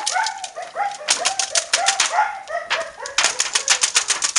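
Malinois puppies giving a rapid run of short, high yips, about four a second, during rough play over a rag. A fast crackling clatter of clicks runs underneath and gets denser near the end.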